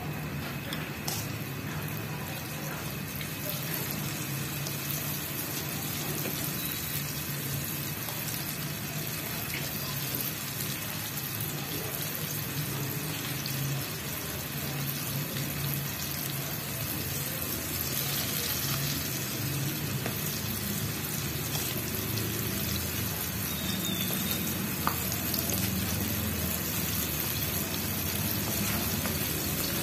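Flour-coated chicken pieces deep-frying in canola oil in a wok: a steady sizzle with a few faint pops, growing a little louder toward the end.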